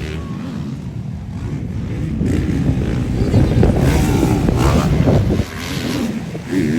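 Motocross motorcycle engine running hard at high revs. It grows louder over the first few seconds, drops off sharply about five and a half seconds in, then revs up again near the end.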